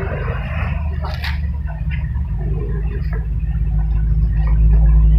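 Suzuki XL7's four-cylinder engine idling with a steady low rumble that grows louder near the end, with a sharp click about a second in.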